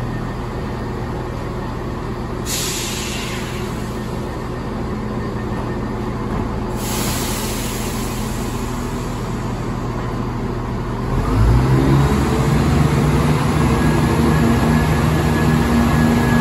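Chiltern Railways diesel multiple unit idling at the platform, with two bursts of air hiss about 2.5 and 7 seconds in as the doors and brakes work. About 11 seconds in its underfloor diesel engines open up, a low drone rising in pitch and then holding steady as the train starts to pull away.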